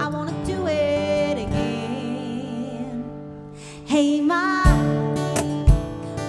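Live acoustic music: a woman singing wordless, wavering notes over strummed acoustic guitar. The singing dips softer in the middle, then returns louder about four seconds in, with low cajón thumps.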